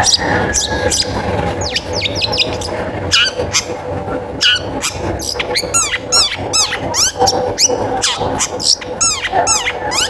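Long-tailed shrike (cendet) singing a fast, varied, chattering song of sharp chirps, harsh notes and quick whistled glides.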